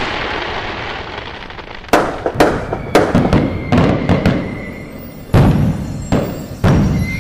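Fireworks going off. A fading crackle in the first couple of seconds, then a run of about seven sharp bangs from about two seconds in, each trailing off.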